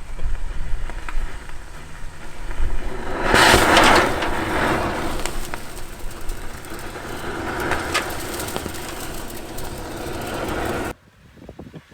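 Thermite grenade burning with a loud, rushing hiss that surges strongly about three and a half seconds in and cuts off abruptly near the end.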